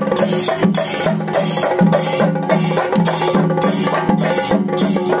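Kerala chenda drum ensemble (chenda melam) playing loud, fast, dense drumming with sticks in an even, repeating rhythm.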